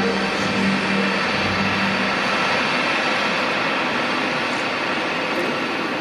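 Light-show soundtrack over loudspeakers: a steady rushing, airy noise, with a low hum that stops about two seconds in.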